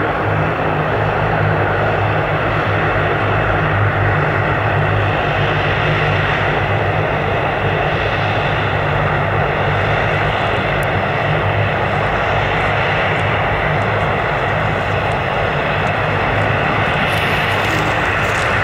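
Airbus A320's twin CFM56 turbofan engines at takeoff thrust: a steady jet roar with a deep rumble as the airliner lifts off and climbs away.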